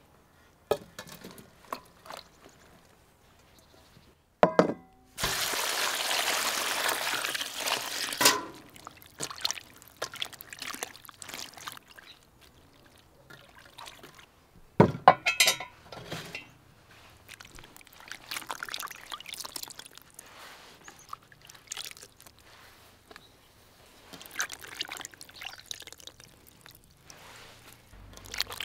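Liquid, most likely water, pouring steadily for about three seconds. Scattered knocks and clicks of things being handled come before and after it, with a sharp clink about halfway through.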